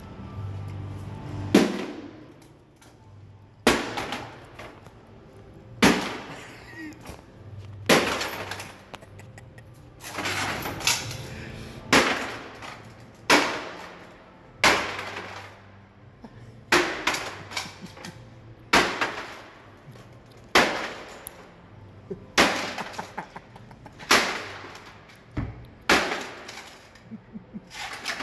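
Flat-screen computer monitor being smashed with a long-handled hammer: about fourteen heavy blows, one every one and a half to two seconds, each with a crack of breaking glass and plastic.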